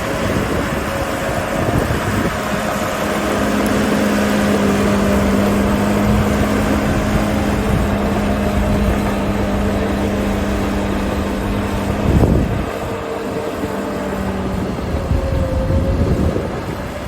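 Caterpillar D5G XL crawler dozer working: its diesel engine runs steadily under load with a held engine note over a heavy low rumble from the machine and tracks. A brief louder burst comes about twelve seconds in.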